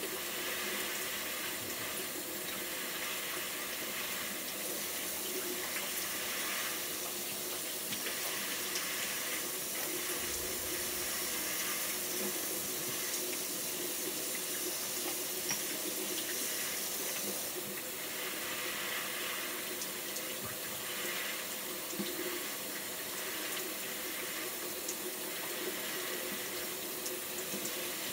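Bathroom sink tap running steadily, with water splashing as soapy hands wash and rinse over the basin.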